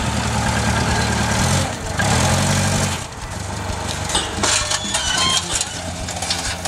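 Forklift engine running at a steady low pitch, loudest for the first three seconds and then quieter, with a few light squeaks and clicks in the second half.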